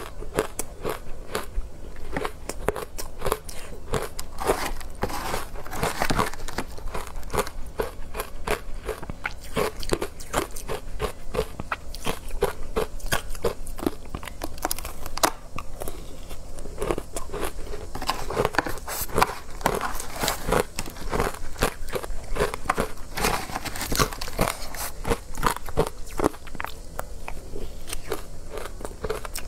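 Close-miked biting and chewing of soft, powdery ice dusted with matcha powder: a dense, irregular run of crisp crunches, many small cracks close together, with no pause.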